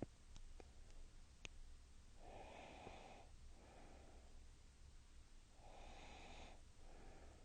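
A person breathing slowly and softly, audibly through the nose, with two in-and-out breaths a few seconds apart. A few faint clicks come in the first second and a half.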